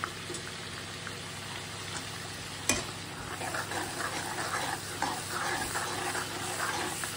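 Chopped onions and ground onion-garlic-ginger paste sizzling in hot oil in a steel kadhai, frying until pink for a chole masala base. There is one sharp knock about two and a half seconds in, then a steel ladle stirring and scraping through the fry.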